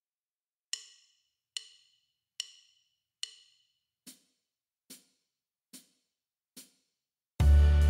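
Count-in clicks at 72 beats per minute: eight evenly spaced dry clicks, the first four higher and louder than the last four. Near the end the backing track comes in with a loud, sustained low chord.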